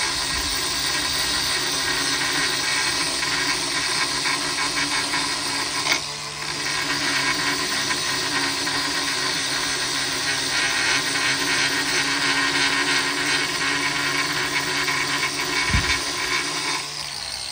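Angle grinder grinding a worn carbide forestry-mulcher tooth clamped in a vise, flattening the humps on the tooth's top. It runs steadily with a brief let-up about six seconds in, and is switched off near the end, its whine falling as it spins down.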